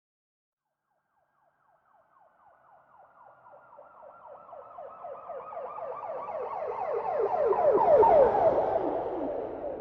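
Police car siren in a rapid yelp, fading in from silence about a second and a half in and growing louder as it approaches. It is loudest about eight seconds in, with a low rumble of the passing vehicle, then recedes, its pitch sinking steadily as it goes by.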